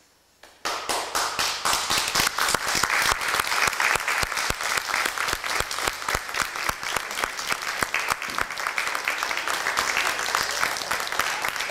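Audience applauding. It breaks out suddenly about half a second in, after near silence, and keeps up steadily.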